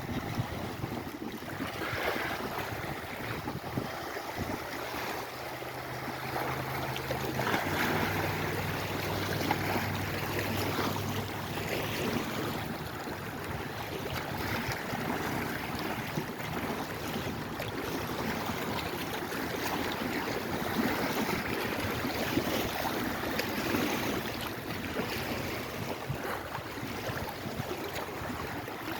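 Lake Erie waves washing in repeated swells every few seconds. A faint, low, steady engine hum sits under them from about 5 to 12 seconds in.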